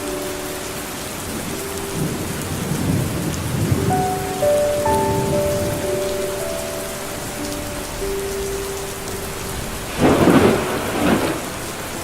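Steady rain with thunder: low rolling rumbles a few seconds in, then a louder crash about ten seconds in. Under it all runs soft music with long held notes.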